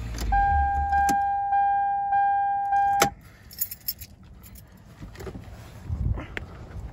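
A 1999 Toyota Camry's 2.2-litre four-cylinder is switched off. A steady key-reminder warning tone then sounds for about three seconds and stops with a click, followed by keys jangling and small rattles.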